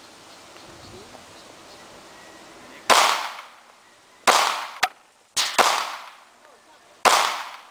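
Springfield XD9 subcompact 9mm pistol firing a string of shots about a second and a half apart, starting about three seconds in, each with a short ringing tail. The pistol is being test-fired and cycles each round without a hitch.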